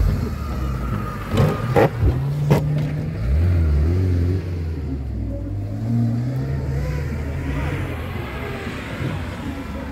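Off-road vehicle engine revving, its pitch rising and falling, with three sharp knocks in the first few seconds.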